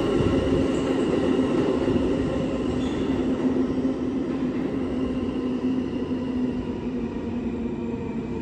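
New York City subway train running out of the station, a rumble with a steady whine on top that fades slowly as it goes.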